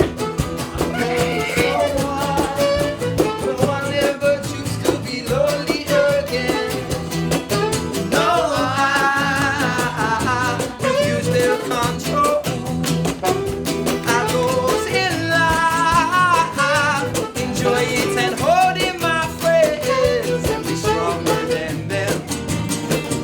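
Live band playing an upbeat song's instrumental break, a lead line carrying the melody over a steady beat.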